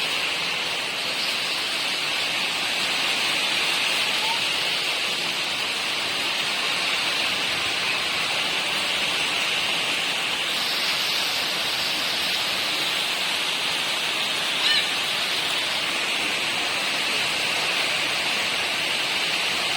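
Heavy rain falling steadily, a continuous even hiss, somewhat stronger from about halfway through. A brief high-pitched sound stands out about three-quarters of the way in.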